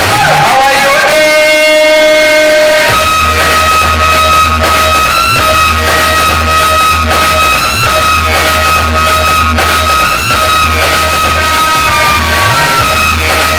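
Music played very loud through a large sound system on sound check: heavy, steady bass under a melody of long held notes. The bass drops out about a second in and comes back about three seconds in.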